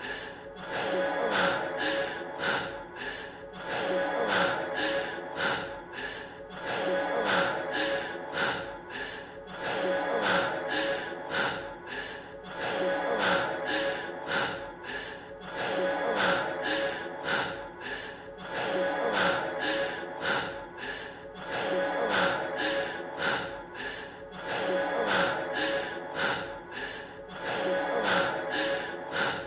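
A male singer's heavy, rapid panting breaths, about two a second, repeated in a short loop over steady held tones of the song's backing music.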